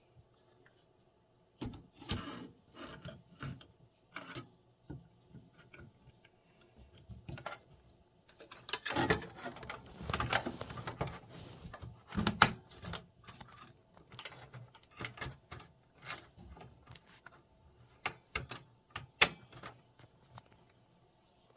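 Irregular clicks, taps and rattles of computer hardware being handled, as when a graphics card is fitted into a PC. They are scattered at first, come thick and fast a few seconds past the middle, and include a couple of sharp clacks.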